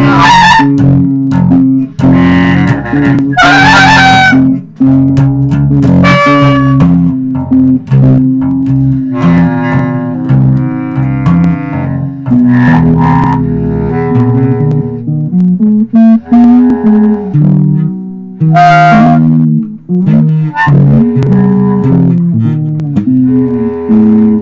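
Loose improvised band jam: electric bass and guitar playing together, a note held over a moving bass line with short bright accents on top.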